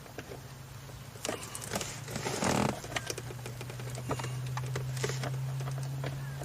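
Irregular plastic clicks and taps from handling and fitting parts of a car's overhead map-light console, with a short rustle about two and a half seconds in, over a steady low hum.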